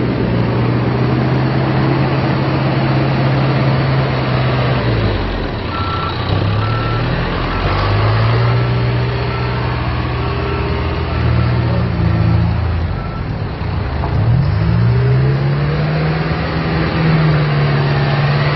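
John Deere 310K backhoe loader's diesel engine running, its speed dropping and climbing back up twice. A backup alarm beeps steadily through the middle stretch while the machine reverses.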